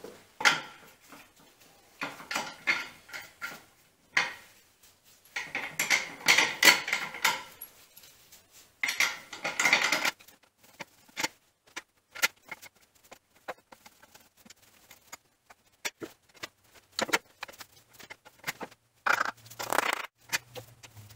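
Metal hand tools and parts clinking and rattling against a Kearney & Trecker 2CH milling machine as it is worked on, in several short bursts of quick clicks with quieter gaps between.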